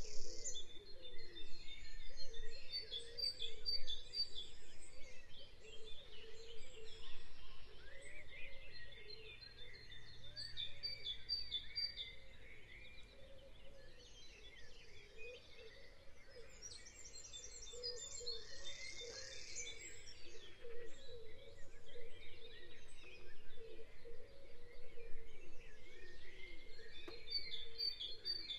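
A bird chorus ambience: many birds chirping and calling at once, their calls overlapping throughout.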